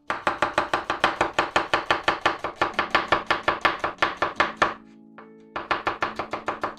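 Kitchen knife chopping an onion on a bamboo cutting board, a quick even run of knife strikes about six or seven a second. The chopping pauses briefly a little before five seconds in, then resumes. Faint background music runs underneath.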